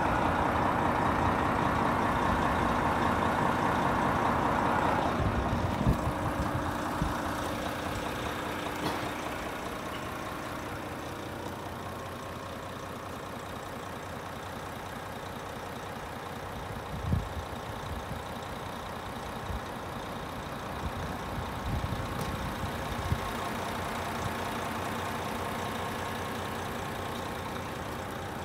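Renault T460 truck's six-cylinder diesel engine idling steadily, louder for the first five seconds or so, with a few short knocks.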